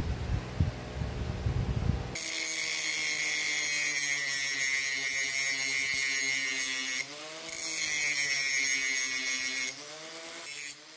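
Angle grinder grinding excess braze off a brazed repair on an old drill's spindle bearing, with a steady high whine that starts about two seconds in. The pitch dips and recovers briefly partway through, and the whine stops near the end.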